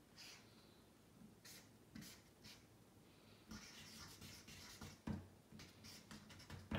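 Pen or marker writing, a run of short scratchy strokes, with a couple of soft knocks in the second half.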